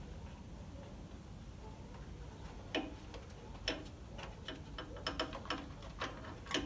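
Light, irregular clicks and taps of small parts being handled against a motorcycle's steel rear fender, starting about three seconds in after a stretch of faint low hum.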